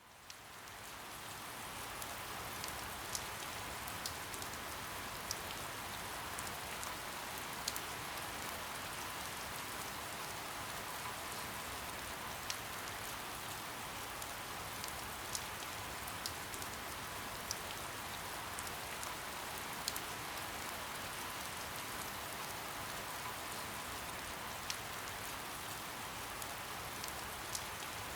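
Steady soft rain falling on a surface, fading in over the first couple of seconds, with individual drops striking closer by as sharp ticks every second or so.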